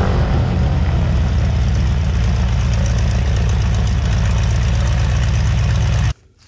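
Boeing Stearman biplane's radial engine idling, a steady low running sound that cuts off abruptly about six seconds in.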